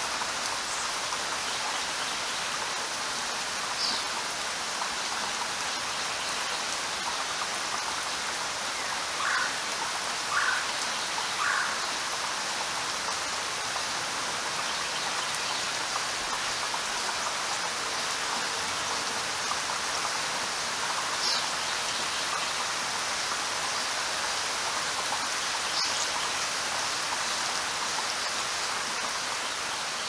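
Steady rain, with a few short bird calls now and then, including three in quick succession about a third of the way in.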